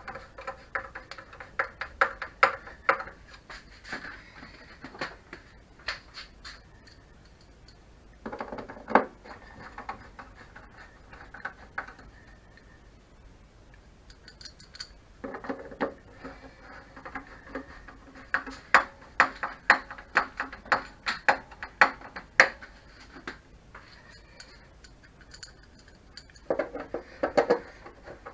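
A hand screwdriver turning the short screws of a Tacx Flux smart trainer's plastic housing cover: sharp rapid clicking in bursts of a few seconds, with short pauses between screws.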